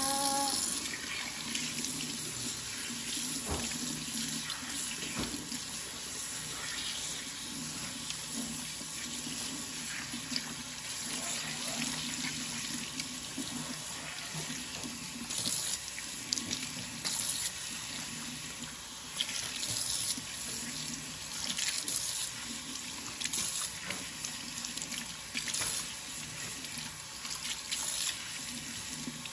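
Kitchen faucet running steadily into a stainless steel sink while hands work wet hair bundles under the stream, rinsing out conditioner; the splashing shifts unevenly as the hair moves through the water.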